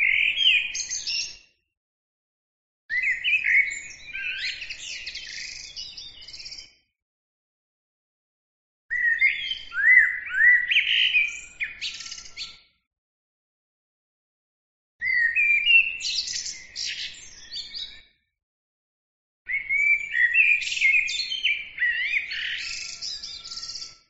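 Eurasian blackbird singing: five song phrases, each a run of fluty gliding notes that breaks into higher, squeaky twittering at its end, separated by short pauses.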